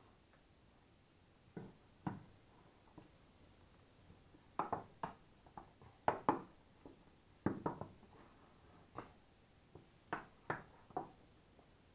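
Irregular knocks and scrapes of a spatula and pork shoulder pieces against a stainless steel roasting pan as the meat is turned in oil, coming in short clusters of two or three from about a second and a half in.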